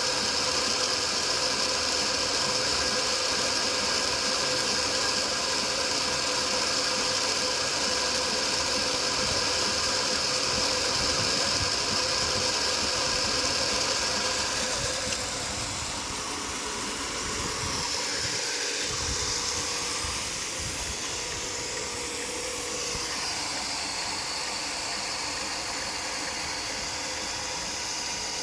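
Commercial reverse-osmosis plant's pump motor running steadily, a constant mechanical hum with a high whine. About halfway through the sound drops a little and the whine thins.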